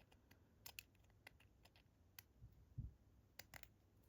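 Faint, scattered small clicks and taps of lock-picking tools working inside a Chubb padlock, with one soft thump near the middle.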